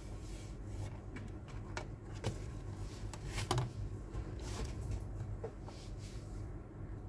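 Hands lifting the pried-loose plastic back cover off a Samsung Galaxy Tab S2 tablet and laying it down: a scatter of light clicks and rubbing, the loudest about halfway through, over a steady low hum.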